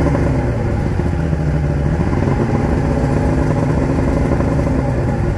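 1988 Force 125 hp inline four-cylinder two-stroke outboard running steadily in neutral out of the water, held to limited RPM by the neutral throttle setting.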